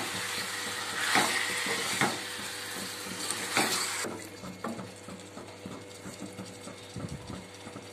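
Raw chicken pieces sizzling in hot oil in a kadai while a wooden spatula stirs them, scraping and knocking against the pan several times. The sizzle drops off sharply about four seconds in, leaving quieter stirring with light clicks.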